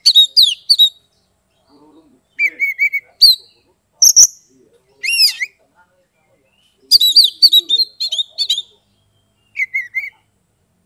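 Oriental magpie-robin (kacer) singing: loud, clear whistled phrases that slur up and down, delivered in about half a dozen short bursts with brief pauses between them.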